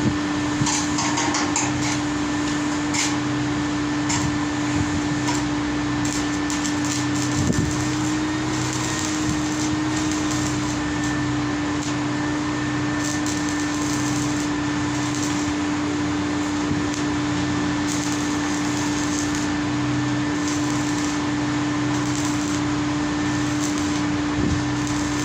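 Steady mechanical hum with one constant tone and a pulsing low drone over a steady hiss, as from a fan or pump running, with a few light knocks now and then.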